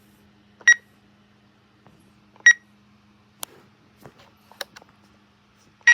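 Three short, high electronic key beeps from a weather radio's buttons being pressed while it is set to program mode, spaced about two seconds apart, with a few faint clicks between them over a faint steady hum.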